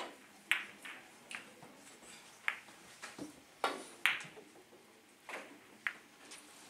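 Sharp clicks of three-cushion carom billiard balls: the cue striking the cue ball, then the balls knocking into each other. About ten clicks, irregularly spaced, each with a short ring.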